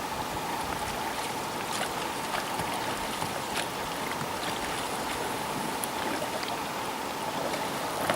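Steady rush of river water around a moving boat, with a faint steady whine and scattered small ticks and splashes.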